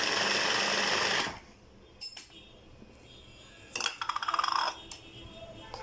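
Electric food processor chopping hot peppers runs steadily and cuts off suddenly about a second in. Then come a few clicks and a short clinking clatter.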